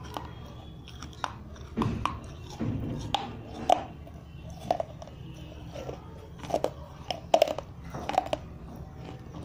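Chewing on pieces of a fired clay kulhad: sharp, gritty crunches, irregular and roughly one a second, loudest around the middle and near the end.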